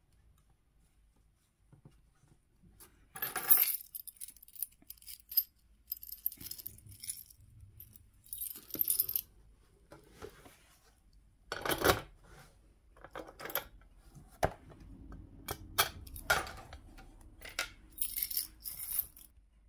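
Metal book safe disguised as a dictionary being handled and opened with its key: scattered metallic clicks and clinks with short scraping and rustling, starting about two seconds in.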